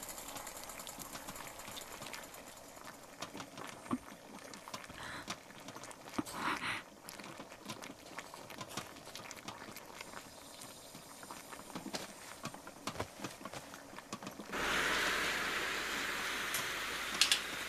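Faint soft rustles and small clicks, then, about fifteen seconds in, a gas stove burner starts hissing steadily under a pot, louder and even.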